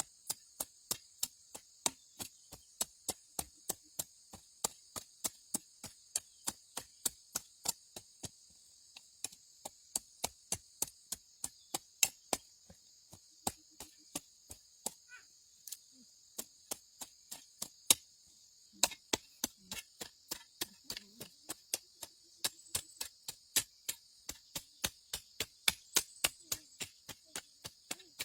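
A rapid, even series of sharp clicks, about three a second, over a steady high chorus of insects.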